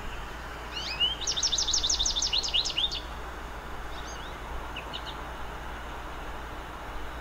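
A bird chirping: a fast run of quick, high notes starting about a second in and lasting about two seconds, then a few faint scattered chirps.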